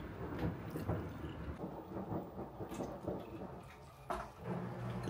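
Close, rustling and crackling handling noise of food and its paper wrapping, over a low rumble. There is a sharper crackle about four seconds in, after which a steady low hum comes in.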